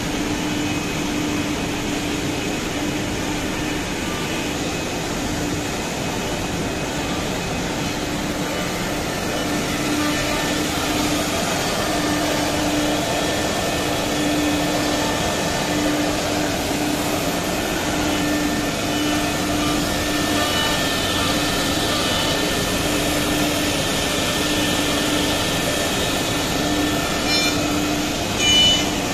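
Four-head CNC nesting router running and cutting industrial board, giving a constant hum over a steady rush of machine and dust-extraction noise. A short louder burst comes near the end.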